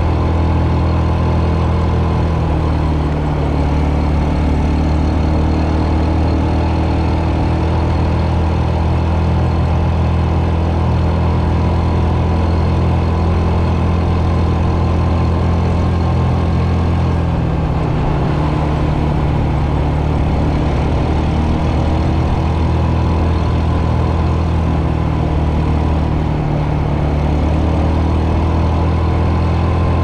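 SYM ATV engine running steadily while riding on a paved road, its pitch shifting slightly with the throttle a few times.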